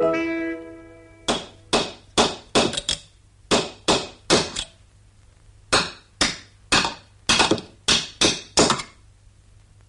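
Hammering: about twenty quick, sharp blows in two runs, with a pause of about a second between them. Music fades out just before the blows begin.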